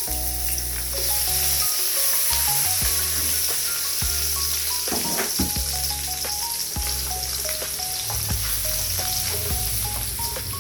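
Pieces of raw chicken sizzling steadily in hot oil in a frying pan with shallots, garlic and red chili, as they start to cook. Background music with short melodic notes plays underneath.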